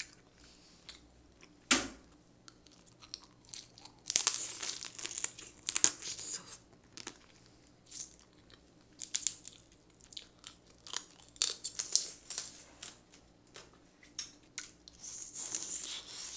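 Steamed blue crab shells being cracked and pulled apart by hand, with crunching and chewing of the crab. Irregular sharp cracks and crackles, the loudest crack about two seconds in and longer bursts of crackling around four to six seconds and near the end.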